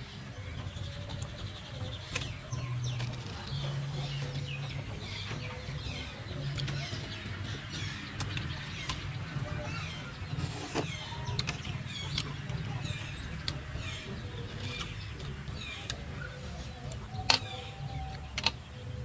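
Birds chirping repeatedly in short falling chirps over a person chewing and eating, with a few sharp clicks, the loudest near the end.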